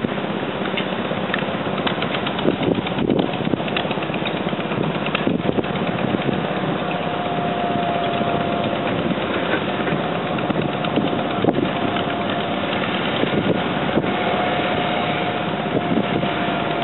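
Engine running steadily. About halfway through, a faint steady whine joins it.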